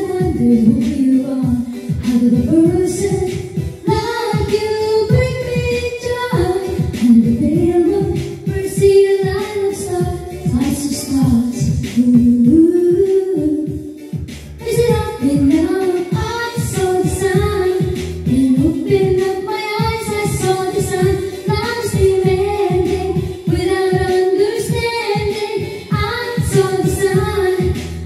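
A woman singing a pop song into a handheld microphone over backing music with a steady beat, with a short break in the singing about halfway through.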